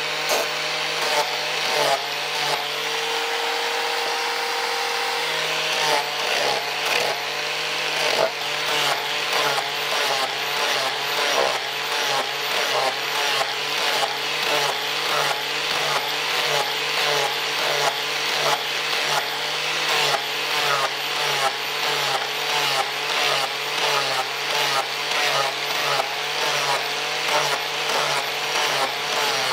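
Angle grinder with a sanding disc running steadily against a wooden knife handle. Its sound dips and recovers about twice a second with each pass over the wood, holding steadier for a few seconds about two seconds in.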